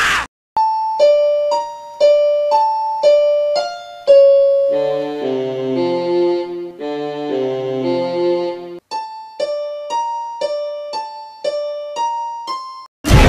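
Background piano music: single notes alternating between a higher and a lower pitch about twice a second, with a passage of soft chords in the middle. The music cuts off near the end and a loud noisy burst starts.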